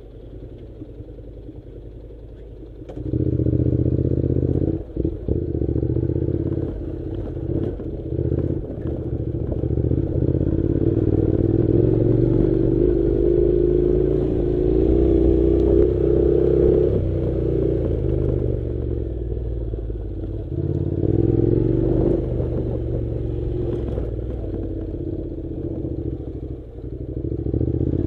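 Honda NC700's parallel-twin engine idling, then about three seconds in it gets louder as the motorcycle pulls away and runs under load up a rough gravel track, with clattering from the rough ground.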